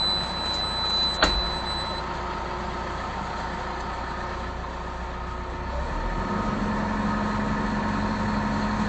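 Case excavator's diesel engine running steadily, heard from the operator's cab, with a sharp knock about a second in. A thin high whine stops about two seconds in, and about six seconds in a steady low hum comes in and the engine gets a little louder.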